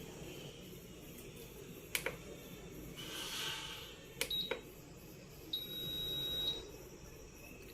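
Preethi induction stove's control-panel buzzer beeping on power-up and operation: a short high beep about four seconds in and a longer beep of about a second shortly after, among a few sharp clicks.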